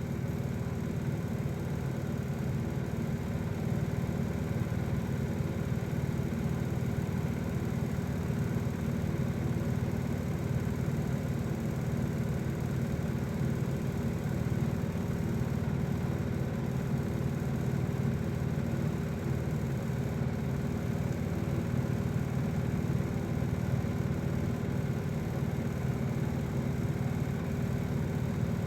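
Steady, unchanging low mechanical hum, like a small motor or fan running.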